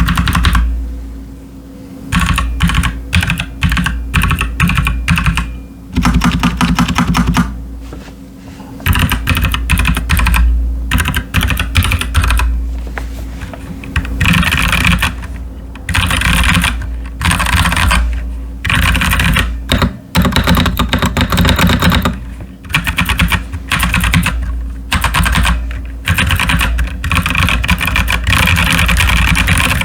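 Typing on a Royal Kludge RK61 mechanical keyboard with stock, unlubricated Nightwalker Solaris tactile switches and PBT pudding keycaps. Rapid keystrokes come in bursts broken by short pauses.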